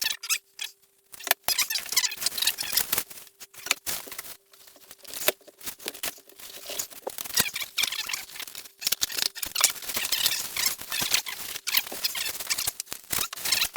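Packaging being pulled and torn off a rubber bumper plate: irregular rustling, crinkling and scraping in quick bursts with short pauses.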